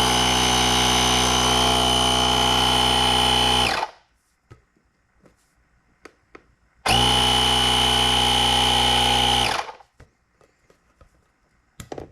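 The portable air compressor built into a GOOLOO A3 jump starter runs while inflating a ball through an inflation needle. It runs twice: first for about four seconds, then, after a pause, for about three more. Each run is a steady motor buzz that stops abruptly.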